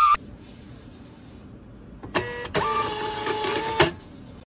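Thermal label printer's feed motor whirring as it prints and pushes out a label, in two runs with a short break between, stopping with a click about four seconds in.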